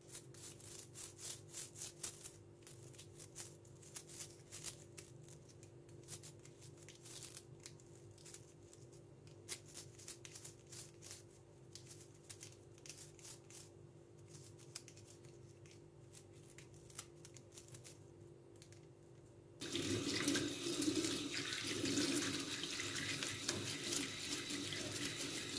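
Toothbrush bristles scrubbing a plastic dishwasher filter basket in quick, scratchy strokes to clear limescale from between its slats. About two-thirds of the way through, a tap is turned on and water runs into a stainless steel sink, the loudest part, while the brushing goes on under the stream.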